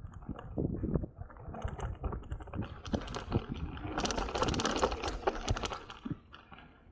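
Mountain bike rolling fast down a dirt and gravel trail: tyres crunching over loose stones with a dense, irregular clatter of the bike rattling over the bumps, busiest through the middle.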